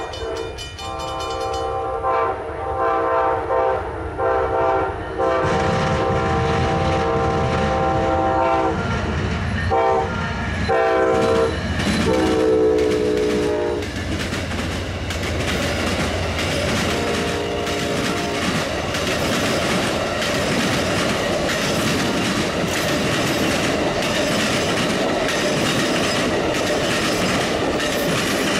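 Amtrak passenger train's locomotive air horn sounding a chord in a series of long and short blasts, the last one dropping slightly in pitch as the locomotive passes, then one more short blast. The passenger cars then roll by with a steady rumble of wheels and a rapid clickety-clack over the rail joints.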